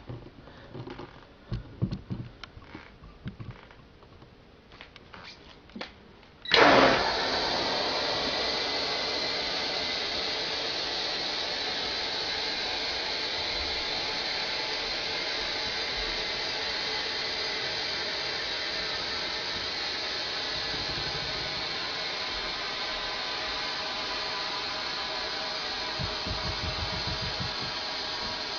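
Compressed air from a tank at about 105 psi bursting out through a sprinkler valve about six seconds in, then hissing steadily. Before it, only a few faint knocks.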